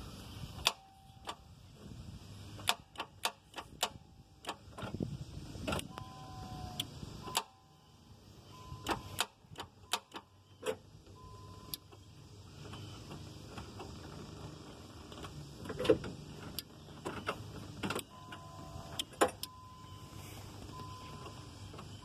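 A run of sharp clicks and knocks with short beeps from an old car as someone tries to start it. The engine never turns over, which the owners put down to a locked-up engine.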